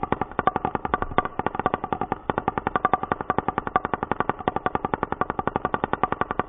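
A golf ball rattling on the vibrating bass radiator of a JBL portable speaker: a fast, even train of clicks, about ten a second, as the bass throws the ball up and down on the cone.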